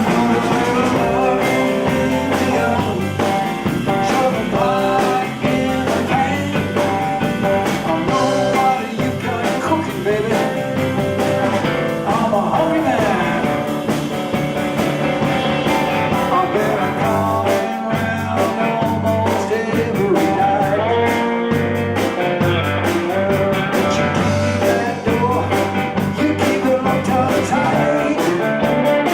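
Live blues band playing an instrumental break: a guitar lead with bending notes over a steady bass line and drums.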